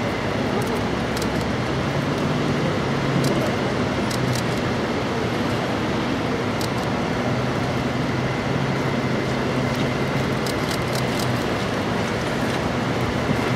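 A heavy truck engine runs steadily with an even hum. This is typical of a ladder truck's engine kept running to power the raised aerial ladder. Scattered light clicks sound over it.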